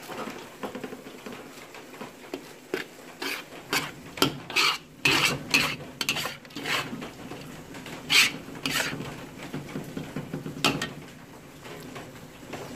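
Metal spatula scraping and stirring half-cooked glutinous rice (nasi aron) around a wok, in a run of irregular scrapes against the pan, over a steady low hum.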